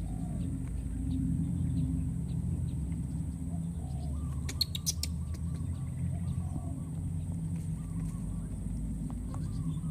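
Faint short chirping calls every second or two over a steady low rumble and a constant thin high whine, with a quick run of wavy chirps in the second half and a brief cluster of clicks about halfway through.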